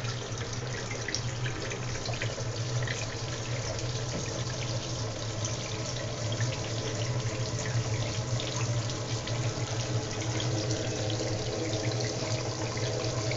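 Shower water running steadily into a bathtub, splashing on the tub and on the birds being bathed.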